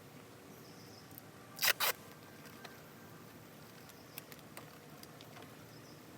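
Two loud sharp clicks in quick succession, then a few fainter ticks, over a steady low hiss.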